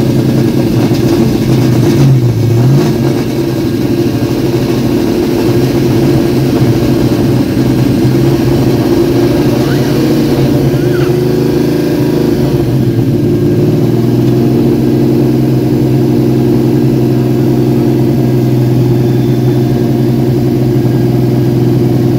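The Mustang's 347 stroker small-block V8, built on a 302 block with FiTech fuel injection, running at idle. Its speed dips briefly and comes back about two and a half seconds in, wavers for a while, and settles into an even idle in the second half.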